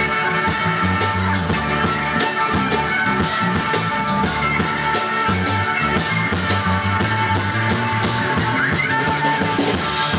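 Rock music with guitar playing continuously.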